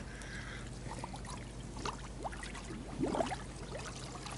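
Gentle sloshing and trickling of river water around a large wels catfish being held at the surface and eased away for release, with a slightly louder slosh about three seconds in.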